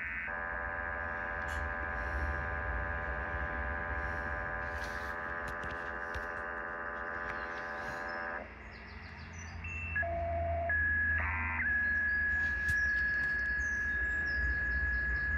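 Radio receiver in upper-sideband mode playing a data transmission on about 40.67 MHz, a signal the listener takes for a Colorado avalanche warning system: a chord of many evenly spaced steady tones for about eight seconds over hiss. After a brief drop and a few short tones, it settles into one steady single tone with a short blip of stacked tones, from the data stream near 40.688 MHz.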